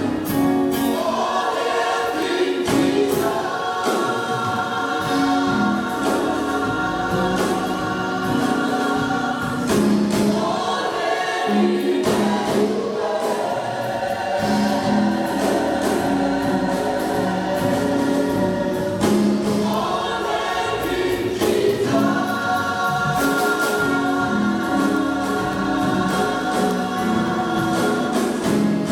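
Gospel choir singing in harmony, long held chords that change every few seconds.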